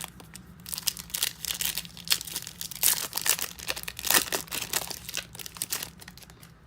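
Foil wrapper of a 2014 Bowman Chrome football card pack crinkling and tearing as it is ripped open. It is a dense run of crackles from about a second in until near the end.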